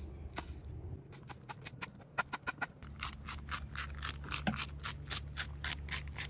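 Pepper grinder being twisted, cracking peppercorns: a rapid, even run of gritty clicks, about six a second, sparse at first and steadier and louder about three seconds in.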